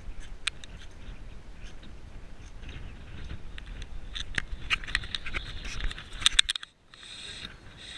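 Handling noise from a GoPro held in the hand: irregular rubbing, scraping and sharp clicks against the camera, with a low rumble underneath. It grows busier about halfway through and cuts out suddenly near the end.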